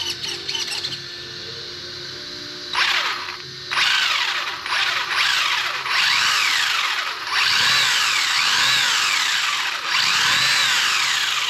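Electric motor and drivetrain of a 1:12-scale RC buggy given several throttle bursts: a whine that rises and falls in pitch with each blip, starting almost three seconds in.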